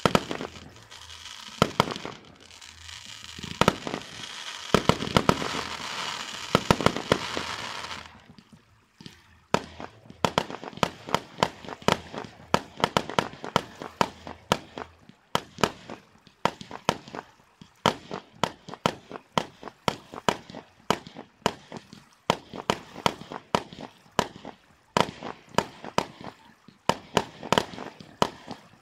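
Aerial fireworks going off: first a dense crackling and hissing broken by bangs, then after a short lull near the middle a steady string of sharp bangs, two or three a second, as a battery fires shot after shot.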